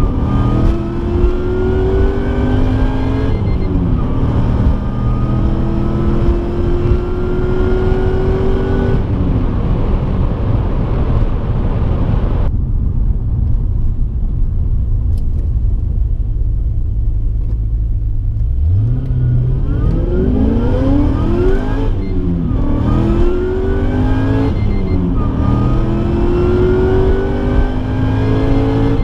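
Supercharged 6.0-litre LS2 V8 of a 2006 Pontiac GTO with a Magnuson TVS2300 blower, heard from inside the cabin while accelerating hard through the gears. The engine pitch climbs, drops at each upshift and climbs again. Around the middle it falls back to a quieter, lower drone, then about two-thirds through it revs up again for a second pull with two quick upshifts.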